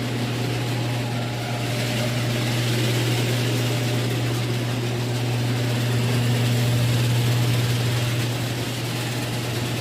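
Electric garage door opener running steadily as it raises the door: a constant motor hum under the noise of the door travelling.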